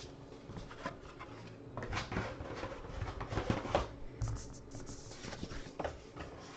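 Paper and card handling: light rustling, scraping and small taps as cards and envelopes are moved about on a table.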